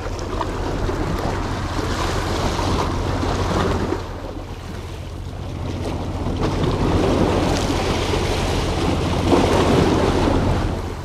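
Small sea waves breaking and splashing against shoreline rocks, surging louder and easing off in turn, with wind buffeting the microphone.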